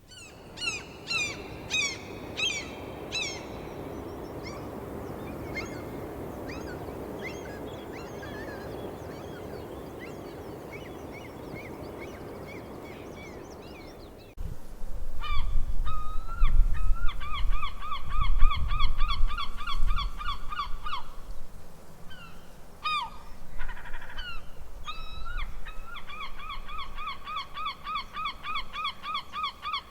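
Seagulls calling. First, several gulls crying in a harbour over a steady background hiss. After a cut about fourteen seconds in, a single gull on a beach gives long runs of rapid repeated calls, over a low rumble for several seconds after the cut.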